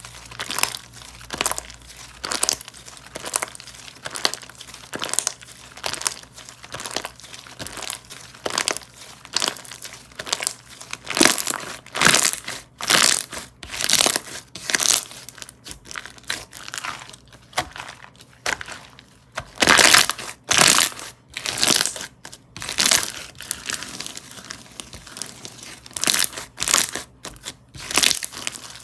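Textured slime being pressed, squished and pulled by hand, giving dense crackling and crinkling sounds in irregular bursts that grow louder in the middle.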